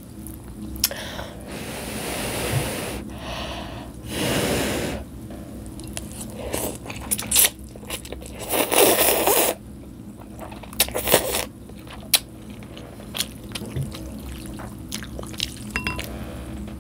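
Egg noodles in chicken broth being slurped up into the mouth in several long, noisy pulls, with wet chewing and small mouth clicks and smacks between them, picked up close to the microphone.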